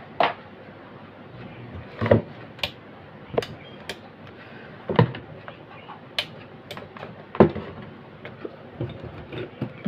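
Aluminium case of a 1000 W inverter-charger being handled and shifted on a table: a string of separate sharp knocks and clatters, about ten, at irregular intervals.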